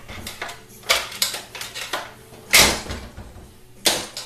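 Metal transmission parts knocking and clanking as they are handled and lifted out of the case, several separate knocks with the loudest, rattling one about two and a half seconds in.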